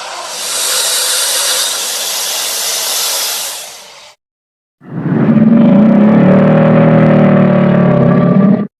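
American alligator sounds: a long breathy hiss, then after a brief cut to silence a loud, low, rumbling growl or bellow that stops abruptly near the end.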